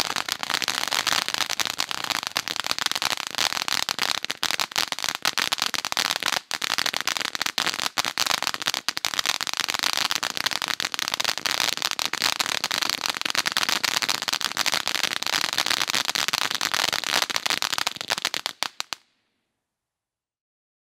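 Fireworks crackling: a dense, continuous rain of tiny pops with no break, cutting off abruptly near the end.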